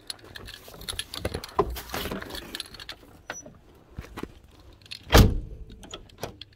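Keys jangling and a run of small clicks and rattles as a car door is unlocked and opened, then one loud thump about five seconds in from the door.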